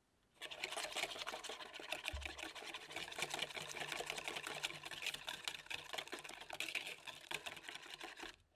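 Wire whisk beating egg with sugar and salt in a mixing bowl: fast, steady clicking and scraping of the wires against the bowl. It starts about half a second in and stops abruptly near the end.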